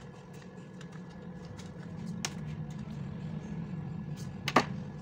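A steady low machine hum that grows slightly louder, with scattered light clicks and a sharp click near the end as eyeglasses are taken off.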